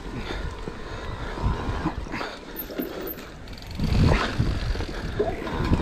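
Electric full-suspension mountain bike riding a dirt forest singletrack: tyres rolling and the bike rattling under a low rumble, with several louder knocks over bumps, the loudest about four seconds in.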